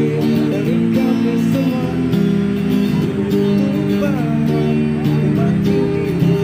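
Background music with sustained melodic notes and occasional sliding pitches.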